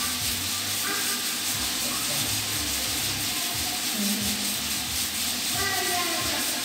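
Steady hissing rush of water flowing from an aquarium filter outlet.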